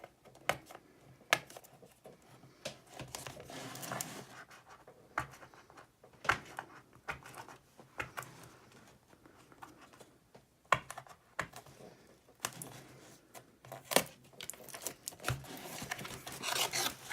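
A cardboard box of Rubik's Cubes being opened and handled by hand: scattered sharp clicks and taps, with stretches of packaging rustling and crinkling, the longest near the end.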